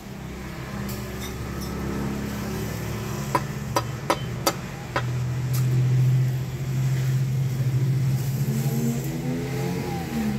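A motor vehicle's engine running close by, a steady hum that grows louder and rises and falls in pitch near the end. A few seconds in come four sharp taps of a knife on a wooden chopping block.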